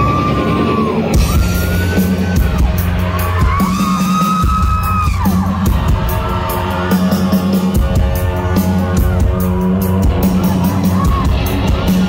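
Loud live rock music in a hall, heard from the crowd: a steady pulsing bass line and cymbals, with several long high yells rising and falling over the music.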